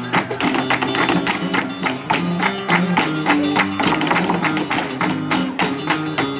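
Live flamenco: a Spanish guitar plays under rapid hand-clapping (palmas) and the dancers' heel-and-toe footwork (zapateado), a dense run of sharp strikes.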